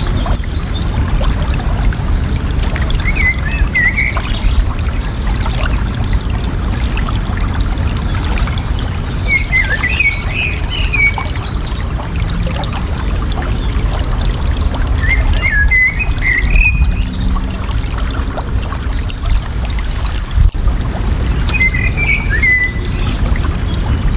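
Water running and trickling steadily, with a bird calling a short, quick chirping phrase four times, about every six seconds.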